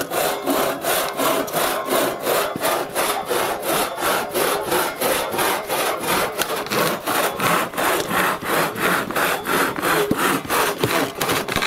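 Two-man crosscut saw cutting through a wooden board, steady rasping back-and-forth strokes at about four a second, stopping suddenly near the end as the board is cut through.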